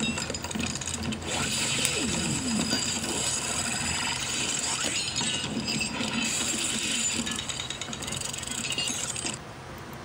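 Plastic Transformers action figure being handled: its ratcheting joints and plastic parts clicking and scraping as they are moved, stopping suddenly about nine seconds in.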